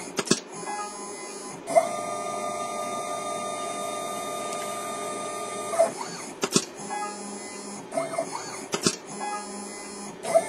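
CNC solder paste dispenser's stepper motors whining as the machine moves. One long steady move runs from about two to six seconds in, with shorter moves and a few sharp clicks before and after it.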